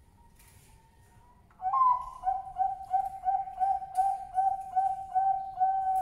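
Male Bangkok perkutut (zebra dove) cooing: a loud first note about one and a half seconds in, then a quick run of short, even coos, about three a second, closing on a longer held note.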